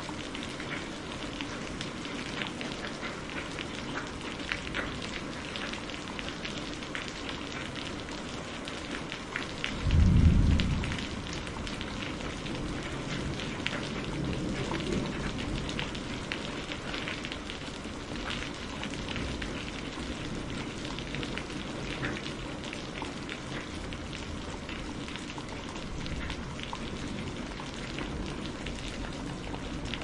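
Heavy rain falling steadily on palm fronds, a dense patter of drops, with a short low rumble of thunder about ten seconds in that is the loudest moment.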